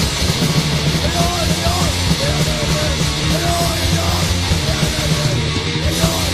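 Swedish hardcore punk recording from 1985: distorted electric guitars, bass and drums playing continuously and loud.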